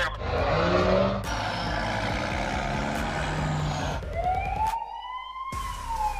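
A vehicle engine sound, then a police siren wail that rises about four seconds in and slowly falls.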